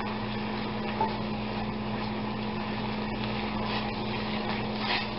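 Vinegar and white wine reduction boiling in a small glass saucepan over a gas burner, stirred with a wooden spoon that knocks the pan about a second in and again near the end, over a steady low hum.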